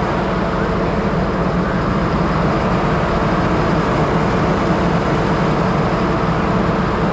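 Engine running steadily at raised throttle while an air compressor pumps air into the firefighting water tank to pressurise it.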